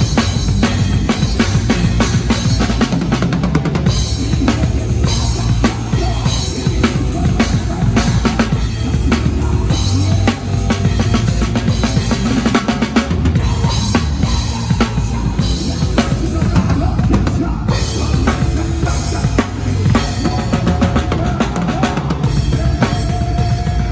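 Drum kit played close-up during a band soundcheck: rapid, steady kick and snare strokes with cymbals, over the band's continuous bass and guitar.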